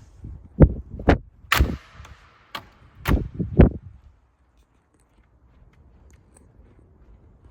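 A series of sharp knocks and clatters over the first four seconds, one of them with a short ringing tail, then near quiet.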